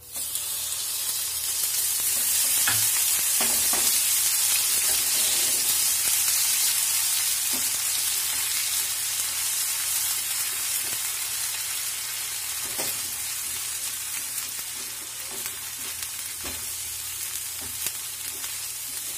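Onion, ginger and garlic paste sizzling in hot oil in a pan: a loud sizzle starts suddenly as the wet paste goes in and slowly eases off as it fries. A spatula scrapes and knocks against the pan now and then as the paste is stirred.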